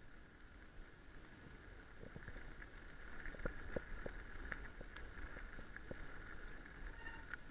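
Mountain bike rolling along a gravel forest road, heard from a handlebar-mounted camera: steady tyre and drivetrain noise with scattered clicks and rattles, over low wind rumble on the microphone. The clicks come more often from about three seconds in.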